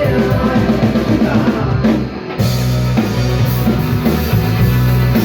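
Live band playing loud music with a drum kit. About two seconds in it drops out briefly, then the band comes back in with a heavier low end.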